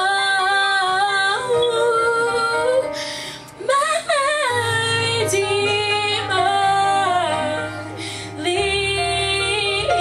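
A woman singing a praise and worship song, with held low accompaniment notes underneath and a short break in the singing about three and a half seconds in.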